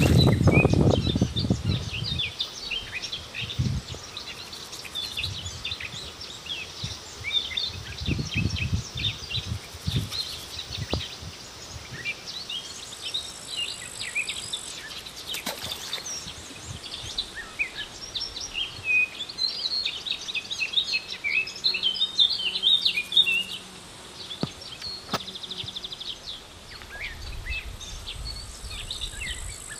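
Many small birds chirping and calling continuously, with a few low thumps and sharp knocks from handling on the bank.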